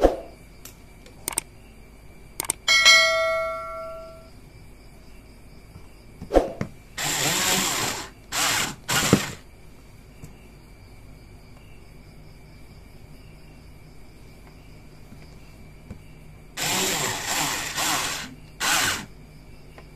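Small clicks and one metallic ring that fades over about a second and a half, then short whirring bursts of a small handheld power tool: three around the middle and two more near the end.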